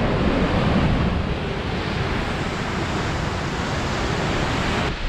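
A steady, loud rushing noise with a rumbling low end, which changes abruptly near the end.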